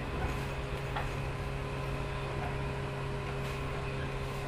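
Interior running sound of a JR 115-series electric multiple unit motor car: a steady low hum over even wheel-and-rail noise as the train runs in toward a station stop.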